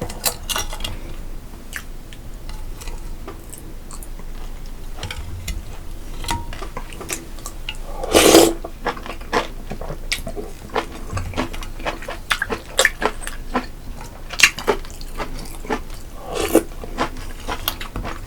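Close-miked chewing and wet mouth clicks of a person eating, with one louder, longer sound about halfway through.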